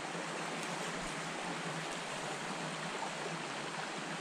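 Trout stream water running steadily.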